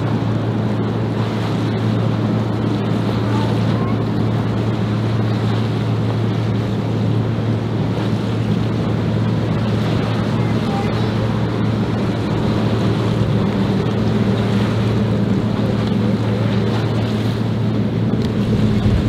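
A boat motor running with a steady low hum, over the rush of water and wind on the microphone.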